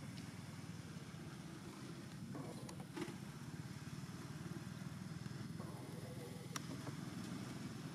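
A motor engine running steadily in the background as a low rumble, with a few faint clicks about three seconds in and again later.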